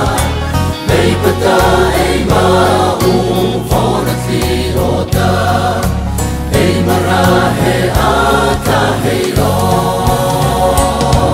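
Background song: voices singing a hymn-like tune over instrumental backing with a steady, changing bass line.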